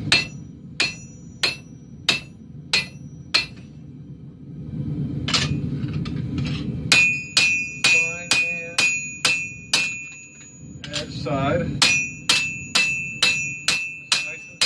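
Hand hammer striking a red-hot khukuri blade on a steel anvil, forging a curve into the blade. The blows come in three runs at about two a second; in the later two runs the anvil rings on with a clear high tone between strikes, and a low rumble fills the pauses.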